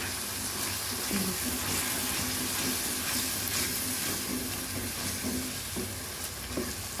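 Potatoes, onions and tomatoes sizzling in hot oil in a pan as a spatula stirs them, with a few short scrapes of the spatula against the pan. A tablespoon or two of water has been added to keep the masala from burning.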